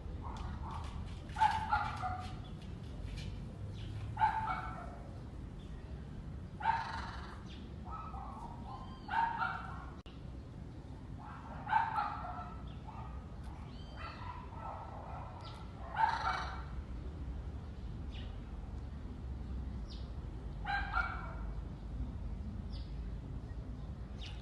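Short animal calls or barks, repeated about every two to five seconds, over a steady low rumble.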